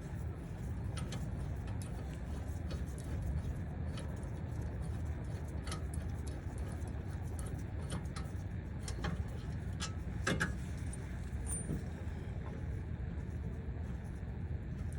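Scattered metallic clinks and clicks of a socket wrench and bolts as the 21 mm brake caliper bracket bolts are worked loose, over a steady low background rumble.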